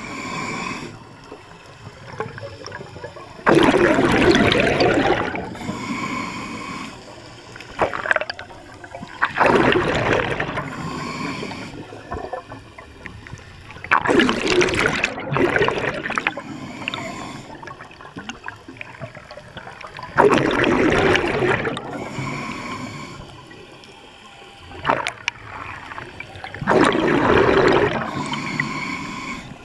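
A scuba diver breathing through a regulator underwater. A loud rush of exhaled bubbles comes about every five to six seconds, five times in all, with a quieter hiss from the regulator between breaths.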